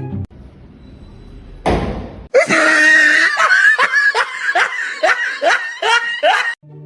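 A short loud burst of noise, then a voice in a rapid run of loud, high, rising cries, about three a second, like shrieking laughter.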